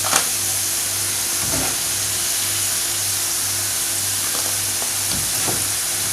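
Ripe plantain slices sizzling steadily in hot vegetable oil in a frying pan, with a few light knocks of a utensil as the golden-brown pieces are lifted out.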